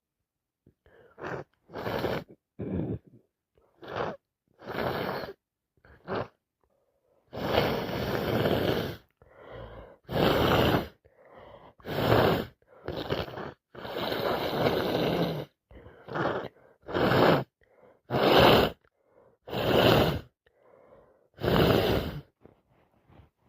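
A person with a heavy cold making a string of loud gasping, wheezy breaths and sniffs through a blocked nose, about twenty short bursts with pauses between, two of them longer, about eight and fourteen seconds in.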